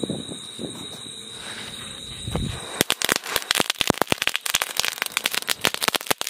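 Two large chatpat crackling firecrackers going off together, a dense, rapid stream of sharp crackling pops that starts about three seconds in.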